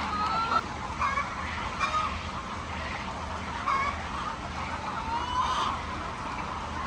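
A flock of poultry calling: scattered short calls, some rising or falling in pitch, several overlapping, over a steady low hum.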